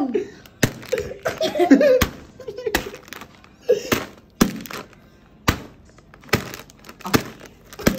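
Hands knocking and tapping on a wooden table and a snack bag: a string of sharp knocks, about one a second, with laughter and voices in the first two seconds.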